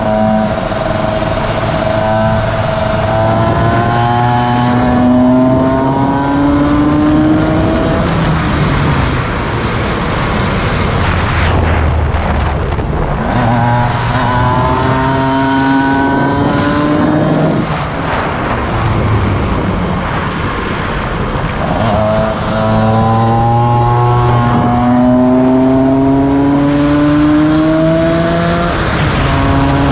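Cagiva Mito EV 125's two-stroke single-cylinder engine under load, accelerating up through the gears: its pitch climbs in repeated rising runs, each dropping back at a gear change. It eases off twice, about a quarter of the way in and again past halfway, before pulling hard again, with wind rushing over the microphone throughout.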